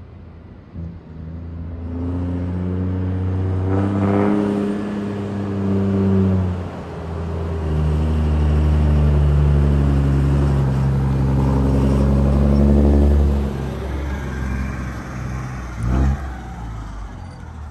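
Heavy truck's diesel engine with a modified exhaust, accelerating hard. The engine note climbs through one gear, breaks at a gear change about six seconds in, climbs again for several seconds, then eases off. A short sharp noise comes near the end.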